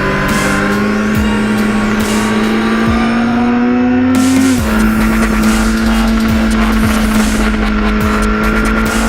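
Motorcycle engine pulling hard at high revs with wind rush. Its pitch climbs slowly, drops sharply with a gear change about four and a half seconds in, then holds steady.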